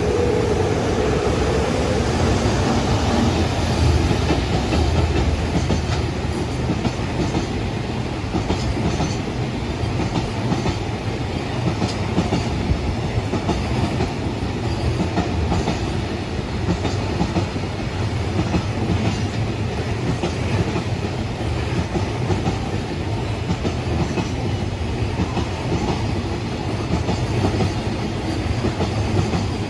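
Long container freight train passing at speed, a steady rolling rumble with the clickety-clack of wagon wheels over the rail joints. A humming tone fades away in the first few seconds.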